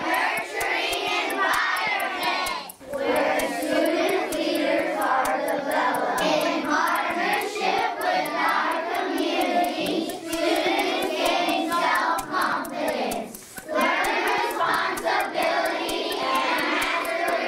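A large group of schoolchildren reciting a statement aloud in unison, in a chant-like choral voice, with two short pauses: about three seconds in and again near 13 seconds.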